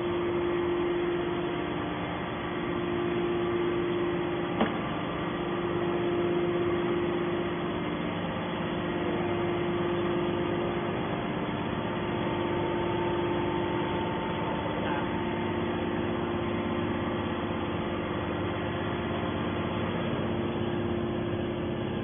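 Steady hum of a hydraulic scrap metal baler's power pack, its electric motor and pump running with the press at rest. A single short click about four and a half seconds in.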